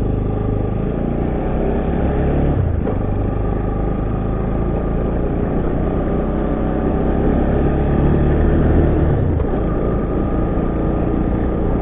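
Motor vehicle engine running steadily, its pitch shifting about a third of the way in and again near the end.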